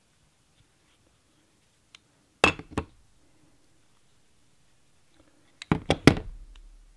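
Sharp clicks and clacks of metal pliers working a tape-wrapped Crosman 761XL air-gun valve assembly apart: two hits about two and a half seconds in, then a quick cluster of three or four near the end as the tools are handled and set down.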